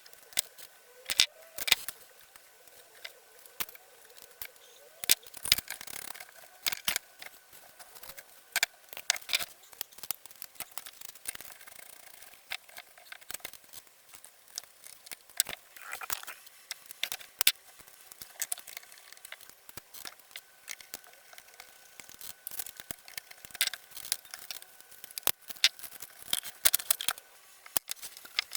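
Irregular clicks, taps and small knocks, like small metal parts and hand tools being handled and set down; no motor is running.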